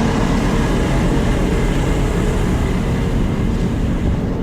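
Farm machinery engine running steadily, with a constant hiss over a low engine drone.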